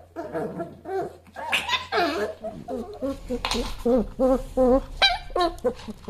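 A pet animal squealing over and over in short calls that bend up and down in pitch, several a second, with a louder, shriller cluster about two seconds in.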